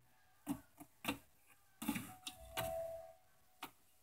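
Faint, irregular clicks and taps of small plastic toys being handled, about half a dozen spread across the few seconds.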